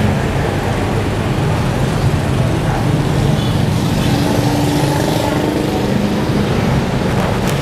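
Steady road traffic noise: motor vehicles running close by.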